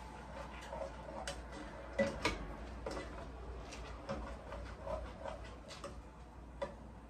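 A cooking utensil stirring sausage and vegetables in a saucepan, making irregular light clicks and taps against the pot, a dozen or so spread across the few seconds.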